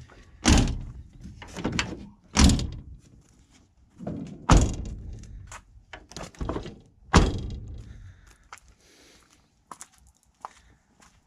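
Jeep Cherokee XJ doors being shut and opened by their handles: four loud thunks about two seconds apart, with smaller latch and handle clicks between them. The newly reinstalled door latches and handle linkages are being checked to see that they catch and release.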